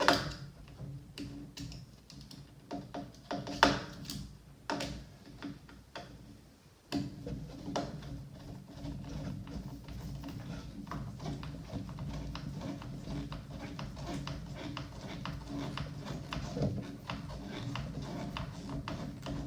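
Sharp clicks and taps of a hex driver and hard plastic parts as screws are fitted into a radio-control truck's chassis. About seven seconds in a steady low hum starts and runs under continued light ticking.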